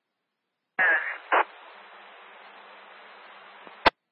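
Emergency-radio scanner channel keying up with no clear speech: a short garbled burst as the carrier opens, a couple of seconds of steady static hiss, then a sharp squelch-tail click as the transmission drops back to silence.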